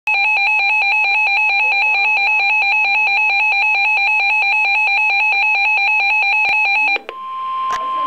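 Reecom weather alert radio sounding its warning alarm: a loud, rapidly warbling two-tone beep that stops about seven seconds in, immediately followed by a steady single-pitch tone, the NOAA Weather Radio warning alarm tone that comes before a broadcast warning. A sharp click falls just before the switch.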